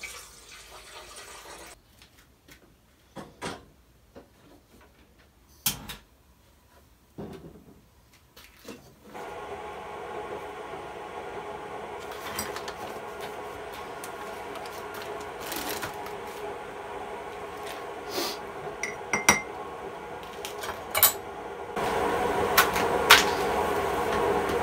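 Mugs and a water jug clinking and knocking on a wooden counter as tea is made. From about nine seconds in, a steady hum sets in and grows louder near the end, from a stovetop kettle heating on a lit gas burner.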